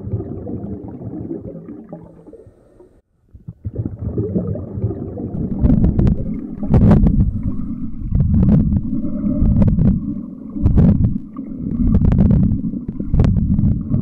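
Muffled rumble of moving water heard through a submerged camera, swelling and fading every second or two, with sharp clicks scattered through it. It drops out briefly about three seconds in, then comes back louder.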